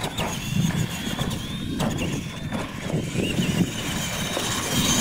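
Electric radio-controlled monster trucks (Tamiya Clod Buster type) racing on dirt: their motors give a high whine that rises and falls as they accelerate and slow, with a couple of sharp knocks.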